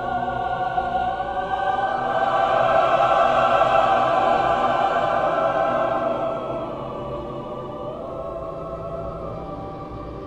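Background music of sustained choral singing, swelling about two seconds in and fading after about six seconds.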